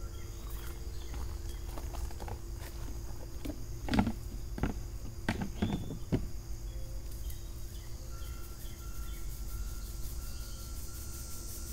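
Garden soil being shaken through a metal kitchen sieve, with a few sharp knocks and scrapes of the sieve about four to six seconds in, the loudest near four seconds. Insects chirp in the background, more plainly near the end.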